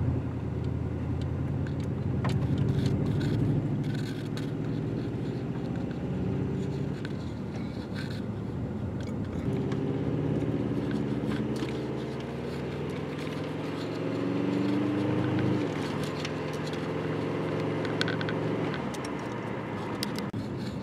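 Subaru WRX's turbocharged flat-four engine and road noise heard from inside the cabin while driving. The engine note climbs as the car accelerates, drops suddenly at a gear change a little past the middle, then climbs again before easing off near the end.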